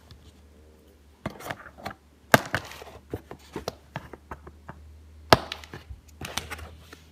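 Scissors snipping the ties that hold a plush toy's feet in its cardboard box, amid rustling and knocking of the packaging. Two sharp snaps stand out, about three seconds apart.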